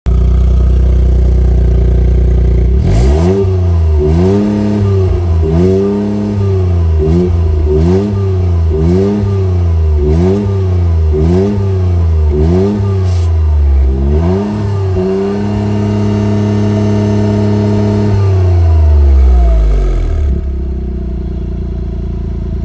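Toyota GR Yaris's 1.6-litre turbocharged three-cylinder engine through a TOM'S stainless steel barrel aftermarket exhaust. It idles, then is blipped about ten times in quick succession, roughly once a second. It is held at raised revs for a few seconds, then falls back to idle.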